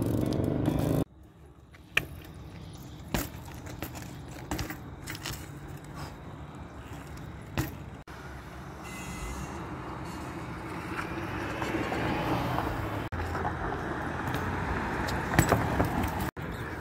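BMX bikes rolling on concrete, with scattered metallic clicks and rattles from the bikes and rough tyre and handling noise that grows louder in the second half. A low rumble fills the first second and cuts off abruptly.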